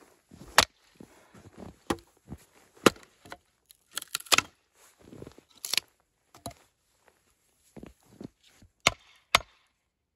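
A series of irregular sharp knocks and cracks, about a dozen, with faint rustling between them, stopping abruptly near the end.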